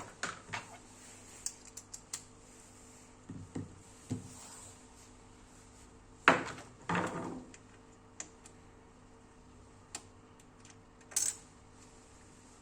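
Scattered light clicks and taps of small metal parts and tools being handled while fitting the mounting screw for an M.2 NVMe SSD in a desktop PC, with a louder knock about six seconds in, another just after, and a sharp click near the end.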